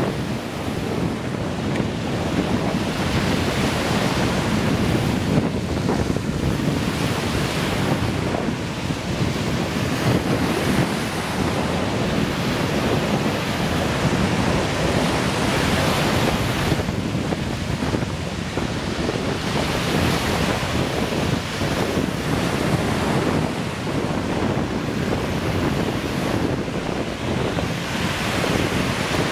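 Small Lake Michigan waves breaking and washing up a sandy shore, each wash swelling up every few seconds. Wind rumbles on the microphone underneath throughout.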